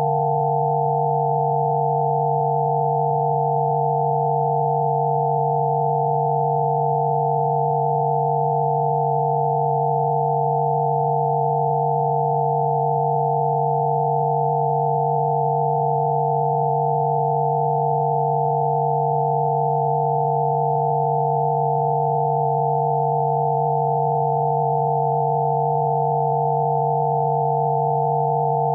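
Rife-frequency tones: several steady electronic sine tones sounding together, one low and a cluster of higher ones, held without any change.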